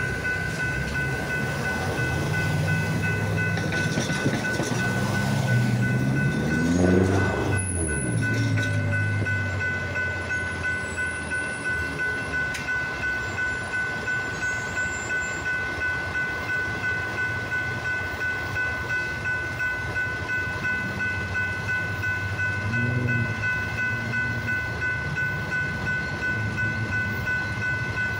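Grade-crossing warning bell ringing on and on in a quick regular beat. About seven seconds in, an engine passes close by, its pitch rising and then dropping away, and near the end the low rumble of the approaching diesel freight locomotives grows.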